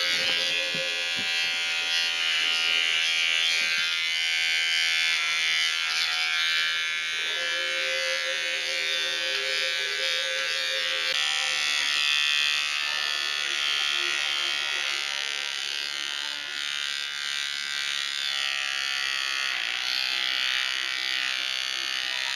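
Oster electric pet clipper buzzing steadily as it trims the fur on a dog's face.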